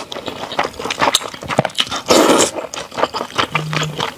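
Close-miked eating of wide flat noodles: wet chewing and lip-smacking clicks throughout, with one louder slurp about two seconds in.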